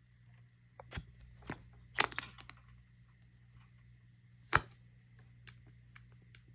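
A few short, sharp clicks and knocks, with a small cluster about two seconds in and the loudest near the end, over a faint steady hum.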